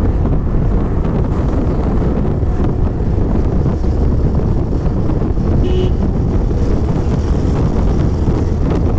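Wind buffeting the microphone on a moving motorcycle: a loud, steady rush over the bike's running and road noise. A very brief faint tone sounds a little before six seconds in.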